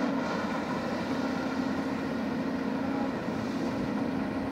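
Volvo 210 crawler excavator's diesel engine running steadily under working load as the bucket digs into a stockpile and lifts, a constant drone with a brief hiss right at the start.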